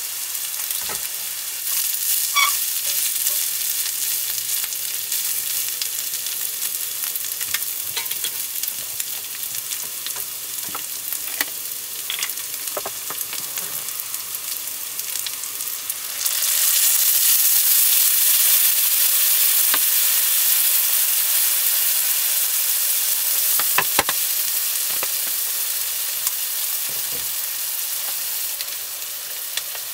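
Food sizzling in a hot pan, with scattered light clicks of a utensil. The sizzle jumps louder about sixteen seconds in, then slowly eases off.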